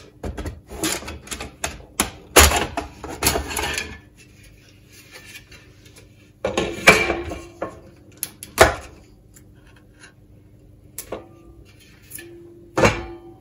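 Sheet-metal cover and screws of a computer ATX power supply handled on a wooden worktop as the case is opened: a quick run of light metallic clicks and clatter in the first few seconds, then a few separate louder knocks.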